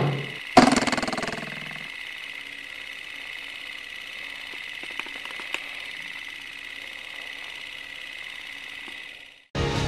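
A clapperboard sound effect snaps shut about half a second in, followed by a steady mechanical whir with a high sustained tone and a couple of faint ticks, which cuts off suddenly near the end.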